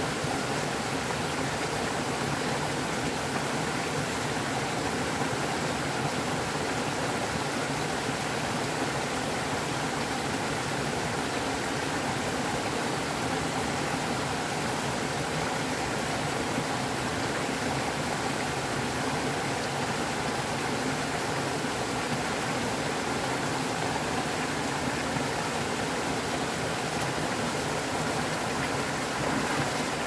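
Shallow stream rushing steadily over a small cascade of rocks.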